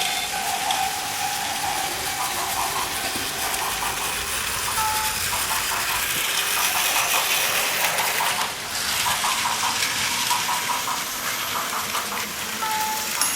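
Battery-powered Plarail toy trains running on plastic track: a steady whir and hiss of small motors and gears, with runs of rapid clicking from the wheels over the track joints.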